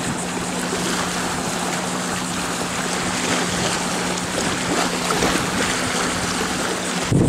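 Steady outdoor wash of small waves lapping on a sandy shore and wind, with a faint steady low hum underneath.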